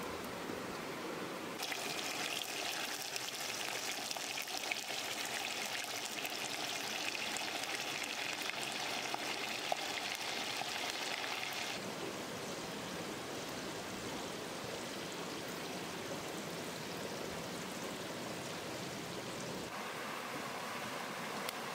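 Fish bubbling and sizzling in a clay pot, with a few light ticks, from about two seconds in to about halfway. After that, a stream running steadily.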